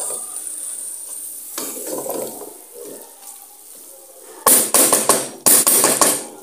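Wooden spatula stirring a thick potato-and-egg mixture in an aluminium pot, scraping along the metal. Softer strokes come in the first half, then several loud scrapes and knocks against the pot in the last two seconds.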